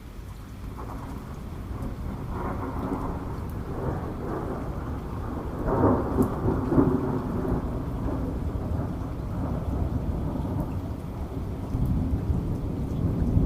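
Rolling thunder over steady rain: a low rumble that builds after the first second, swells loudest about six seconds in, then keeps grumbling.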